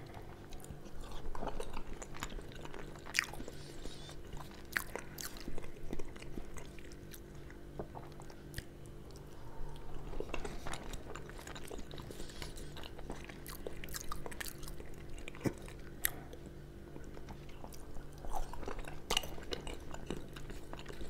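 Close-miked chewing of skin-on fried potato wedges, with scattered sharp mouth clicks.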